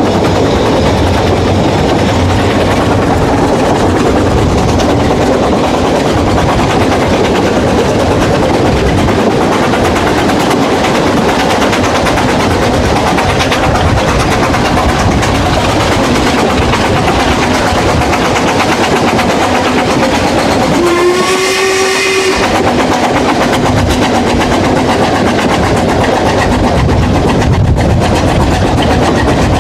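Narrow-gauge steam train running, heard from a carriage window: steady clatter of wheels on rail. About two-thirds of the way through, the locomotive gives one steam whistle blast lasting about a second and a half, rising slightly in pitch as it starts.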